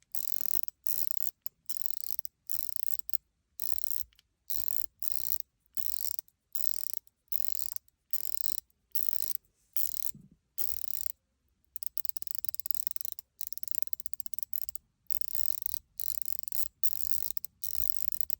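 Shadow Raider MR2 mechanical fidget ring being turned in short bursts, each a quick run of fast, light clicks, about one to two bursts a second with brief gaps between and a longer pause about 11 seconds in.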